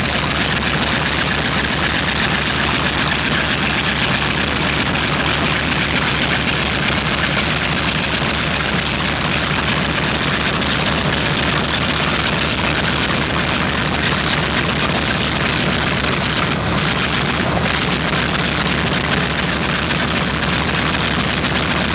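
B-25 Mitchell bomber's twin Wright R-2600 radial engines running steadily at low power, loud and unchanging throughout.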